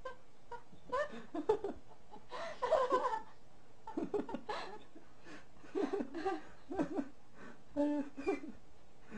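Short bursts of human laughter and giggling come off and on, with pauses between them.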